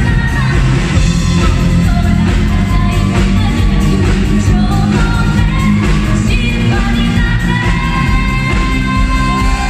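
Live rock band with a female lead singer, drums, electric guitars, violin and keyboard playing an anime theme song through a hall PA. The singer holds a long note near the end.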